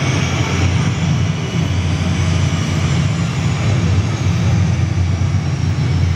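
Jet airliner engine sound played for the model runway: a steady low rumble with a faint high turbine whine that slowly falls in pitch.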